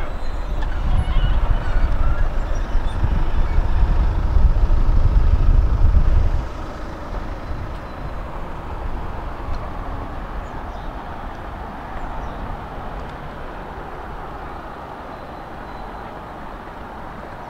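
Budapest tram running, a loud low rumble that drops abruptly about six seconds in to a quieter steady hum.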